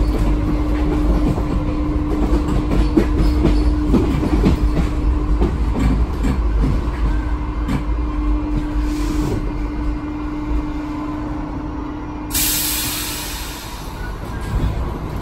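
Interior of an MF77 Paris metro train running on the rails: a steady low rumble and hum with clicking wheel clatter, easing off as the train slows into a station. About twelve seconds in, a sudden loud hiss of air starts and holds, the brake air release as the train stops.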